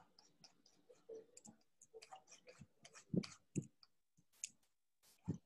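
Light, irregular clicking and tapping from computer input while painting, with a few louder low knocks about three seconds in and again just before the end.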